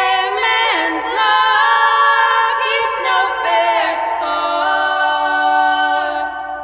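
Two women's voices singing unaccompanied in close harmony, on long held notes that move in pitch together. About six seconds in the upper sound falls away, leaving a lower held note.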